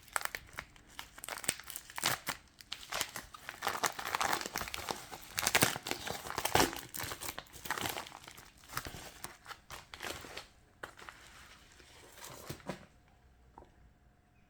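Packaging being handled and unwrapped by hand: irregular crinkling and tearing of wrapping material, which stops near the end.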